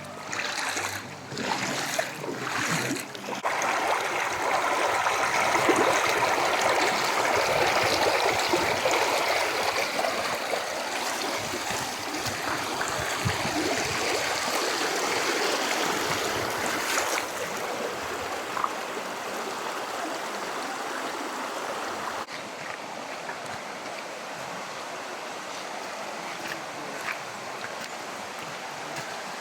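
Canyon stream water rushing and splashing steadily over rocks, swelling a few seconds in and growing softer in the second half.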